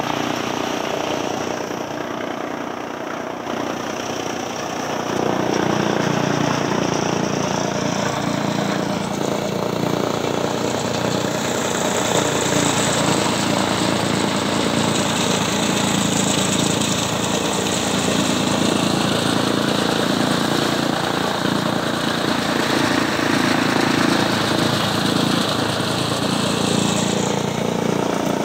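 Chaff cutter chopping green maize for fodder and blowing the chopped stalks out through its delivery chute: a steady, loud machine noise that grows louder about five seconds in.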